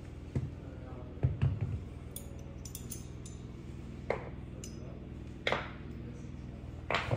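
Metal mounting hardware and tools being handled: a series of irregular metallic clinks and knocks, with a quick cluster about a second in and light high pings a little after, over a low steady hum.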